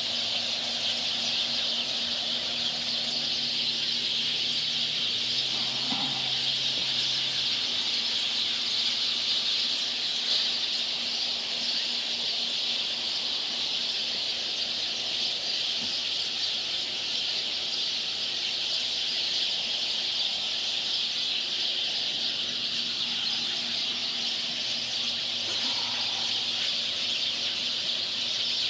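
Dawn chorus of many birds calling at once, a dense, steady mass of high chirping that never lets up.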